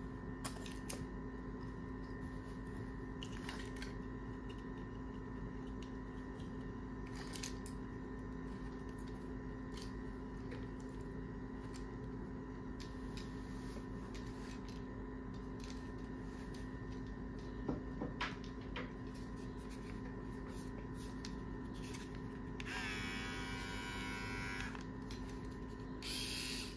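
Steady electrical hum with a few light clicks of plastic trimmer comb attachments being handled. Near the end, an electric trimmer buzzes briefly, twice, with a quiet running sound.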